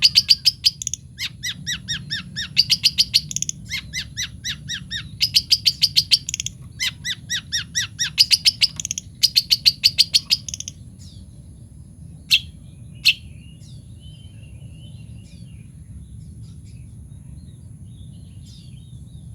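Long-tailed shrike (cendet) calling in loud bursts of rapid repeated notes, several runs of about five or six notes a second, which stop about ten seconds in; after that only faint scattered chirps and two sharp clicks. A steady high-pitched whine runs underneath.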